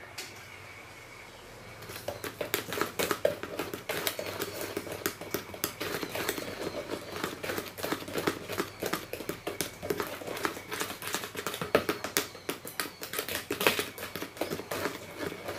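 Chocolate cake batter being beaten by hand in a bowl: a fast, uneven run of clicks and knocks from the utensil striking the bowl, starting about two seconds in.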